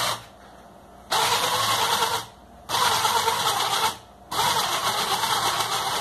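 Small electric motor in a scale RC truck chassis running its drivetrain gearing with a steady whir, switched on and off by hand-held wires. There is a brief blip at the start, then it runs three times: twice for about a second each and a third time from just past four seconds in.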